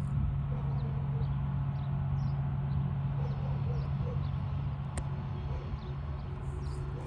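Low steady drone of a diesel freight locomotive approaching but not yet in sight, with faint small-bird chirps over it and a single sharp click about five seconds in.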